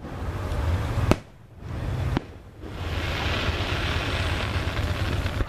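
Fireworks display: a sharp shell bang about a second in and another just after two seconds, over a constant low rumble. From about three seconds on comes a steady rushing hiss.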